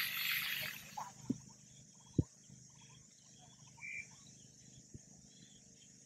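Quiet open-air ambience with a steady high insect drone and scattered faint bird chirps. A short rush of noise comes at the start, and a single sharp knock about two seconds in is the loudest sound, with two fainter ticks around it.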